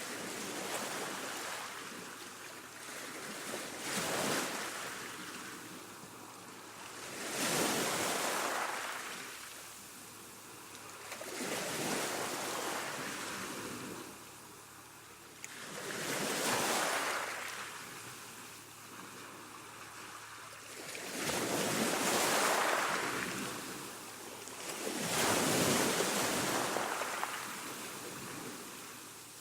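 Calm sea wash: gentle waves washing onto a shore, swelling and fading about every four to five seconds.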